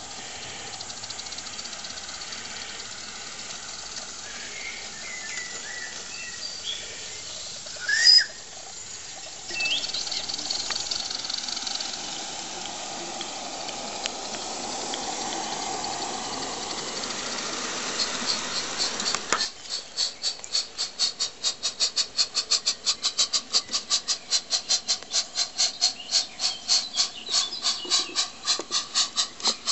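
Live-steam model steam locomotive of a garden railway hissing steam, with a short sharp sound about eight seconds in. From about two-thirds of the way through, its exhaust chuffs in a rapid, even beat of about five a second as it runs by close.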